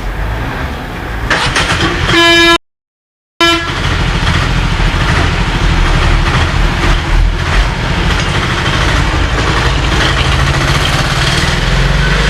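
A vehicle horn sounds briefly about two seconds in and cuts off into a moment of dead silence. Then a steady low engine rumble from a vehicle runs on.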